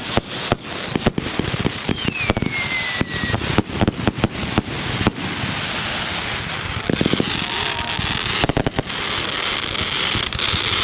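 Consumer fireworks going off: many sharp bangs and pops over continuous crackling, with a whistle falling in pitch about two seconds in.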